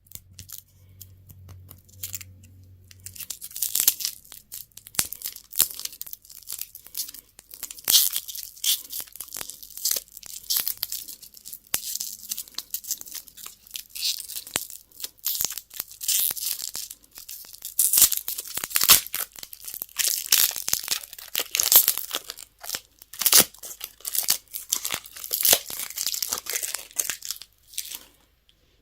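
Candy and toy wrappers being torn open and crinkled by hand, an irregular run of tearing and rustling that stops abruptly near the end.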